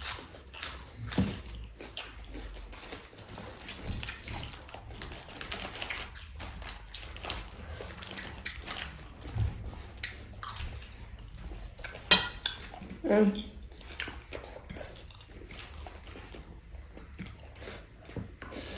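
Cutlery and dishes clinking and clattering during a meal, as a series of scattered small clicks, with one sharp louder clink about twelve seconds in.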